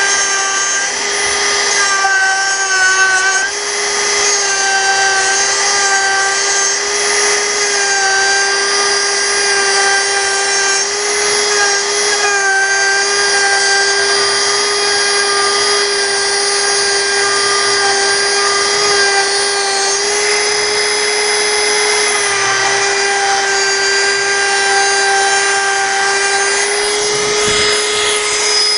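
Dremel 4000 rotary tool with a medium-grit sanding drum running steadily, sanding wood out of a bass guitar body's neck pocket. It makes a high, dentist-drill-like whine whose tone wavers slightly while the drum works the wood.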